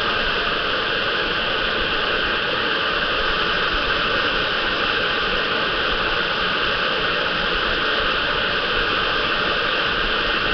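Hot air gun blowing steadily: an even, loud rush of hot air held over a PlayStation 3's RSX graphics chip to reflow the solder beneath it.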